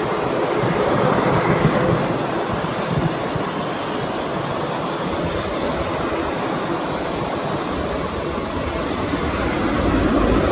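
Twin-engine jet airliner's engines heard from behind, a steady loud rush that swells louder and deeper near the end as the engines spool up.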